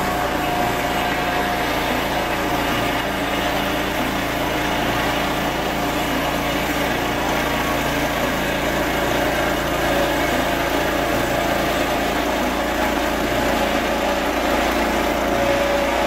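Junior Peterson portable sawmill's small petrol engine running steadily under load while its saw blade cuts along a log of very hard seasoned jarrah.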